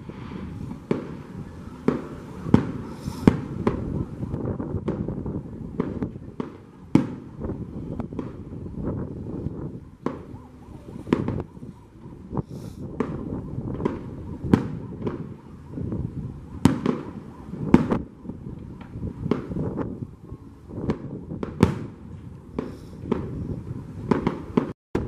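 Aerial fireworks display: a long run of sharp bangs from bursting shells at irregular intervals, sometimes several a second, over a continuous low rumble.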